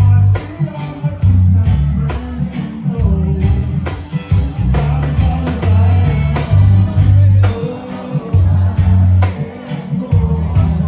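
Loud music with a singing voice over a steady beat and a heavy bass line.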